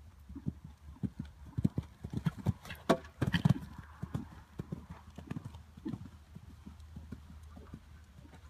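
Horse cantering on a sand arena, its hoofbeats thudding in a steady rhythm, loudest about three seconds in as it passes close.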